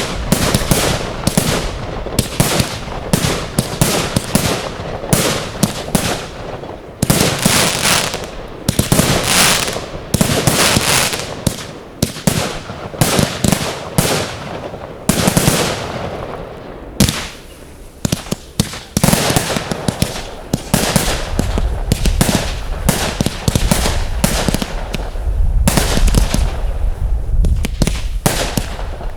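Fireworks display: a dense run of shell bursts and crackling, with hissing trails. Near the end there is a deep rumble under the bursts.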